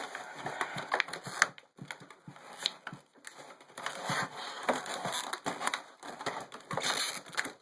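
Stiff plastic packaging crackling and creaking in irregular snaps as it is pulled and worked at to free the toy gun.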